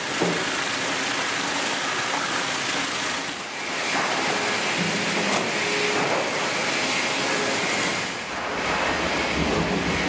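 Steady industrial din of sawmill machinery, with log conveyors and log-handling equipment running. It dips briefly twice.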